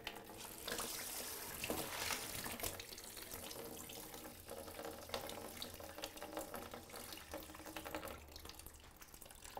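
Water running and hissing through household plumbing, with scattered small clicks and knocks, as the supply is turned back on to test freshly soldered (sweated) copper joints for leaks.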